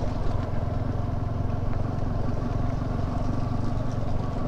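Motorcycle engine running at a steady speed.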